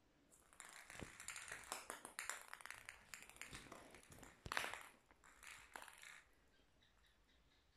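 A quick run of light clicks and taps on a ceramic tile floor as a small plastic ball is batted about and skitters over the tiles, with one louder knock about four and a half seconds in. The tapping stops about six seconds in.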